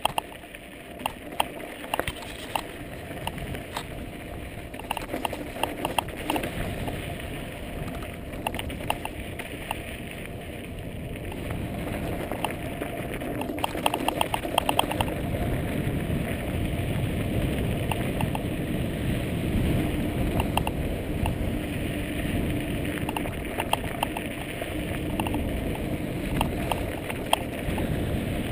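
Mountain bike rolling over a rocky dirt trail: tyres crunching over gravel and stones, with frequent sharp clicks and rattles from the bike, over a rushing low rumble that grows louder about halfway through.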